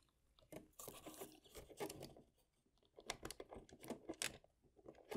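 Faint rubbing, scraping and light clicks of hands working inside a foam RC model airplane's fuselage, fitting small screws into their holes.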